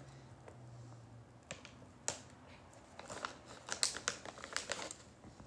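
Light crinkling and clicking of a plastic dog-treat package being handled, in a scatter of short sharp crackles that cluster near the end.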